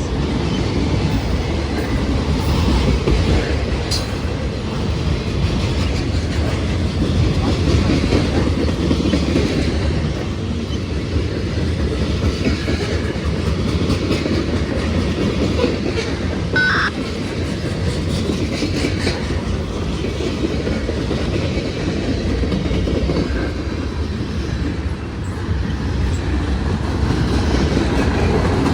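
CSX freight train rolling past, its wheels clacking over the rail joints in a steady rumble, with a brief squeal a little past halfway.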